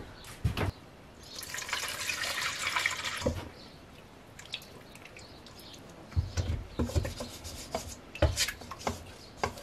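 Water poured into a stainless steel bowl, a hiss lasting about two seconds, followed by a wooden spatula stirring and scraping in the bowl with a few knocks, loosening the leftover honey and rhubarb.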